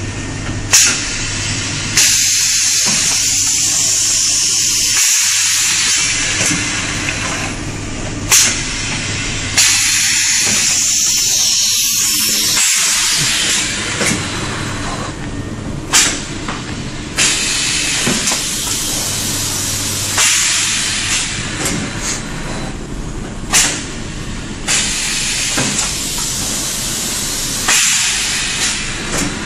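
Industrial rotary-table high-frequency welding and cutting machine cycling: loud air hissing that comes and goes in stretches of several seconds, with sharp clacks every few seconds, often in pairs about a second apart, over a steady low hum.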